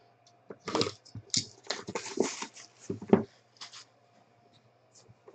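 Sealed cardboard trading-card boxes being handled and set down on a stack: a series of short rustles and scrapes with a few soft knocks, dying away about four seconds in.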